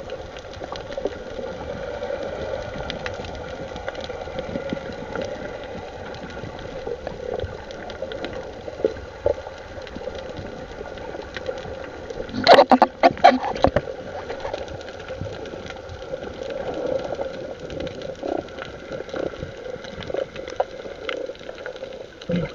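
Steady hum of a small boat engine running, with water sounds underneath. A quick cluster of loud knocks comes about halfway through.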